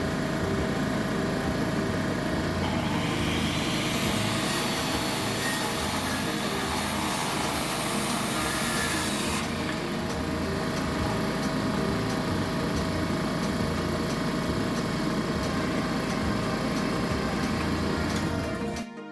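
A steady mechanical din of power equipment, with a power saw cutting wood from about three seconds in to about nine seconds in. The sound cuts off suddenly just before the end.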